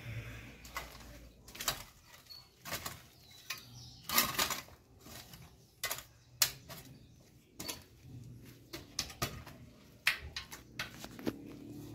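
Metal garden trowel scraping and scooping soil back into a planting hole, with irregular scrapes and small knocks; the longest scrape comes about four seconds in, a sharp knock a little later.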